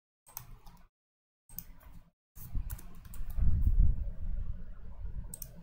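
Clicking and tapping on a computer keyboard and mouse in short bursts, with a longer, busier run of clicks and low knocks in the second half.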